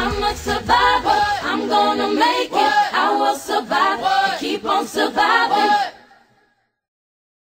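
Closing bars of an R&B pop song sung by layered female vocal harmonies, the bass dropping out about two seconds in. The singing ends about six seconds in, then silence.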